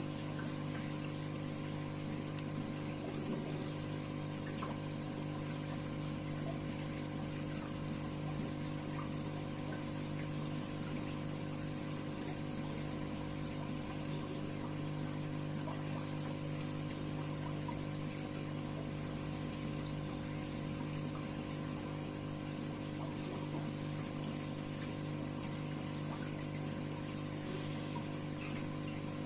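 Aquarium filter pump running with water trickling: a steady hum that does not change.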